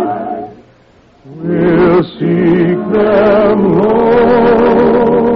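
Operetta singing with musical accompaniment, in long held notes with vibrato. A held note ends just after the start, there is a gap of about a second, and then the singing comes back in.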